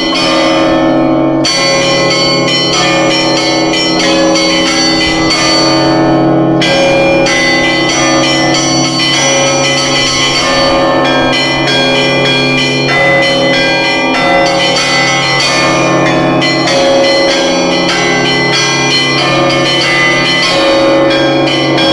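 Russian Orthodox monastery bells being rung, with several bells of different pitches struck in a continuous rhythmic pattern. The high bells strike often over the low bells, which keep ringing beneath them.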